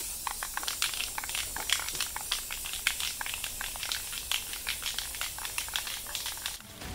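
Aerosol spray can hissing as a gloss clear coat is sprayed onto plastic car grilles, with many short irregular crackling clicks through the hiss.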